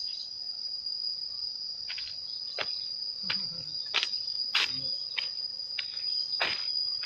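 Insects shrilling with one steady high-pitched tone. From about two seconds in, footsteps crunch on dry bamboo leaves and grit on the road, a little more than one step a second.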